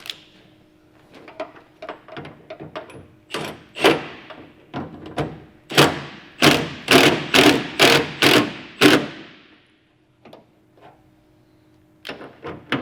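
A run of sharp knocks on the pickup's tailgate bracket hardware, scattered at first and then coming about two a second for several seconds before stopping, as the bracket plate is worked into place.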